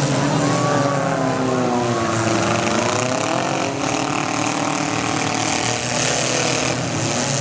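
Engines of several small demolition derby cars revving together, their pitch rising and falling as the cars push and ram each other on the dirt track.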